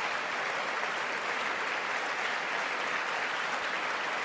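Large audience applauding steadily, a sustained dense clapping.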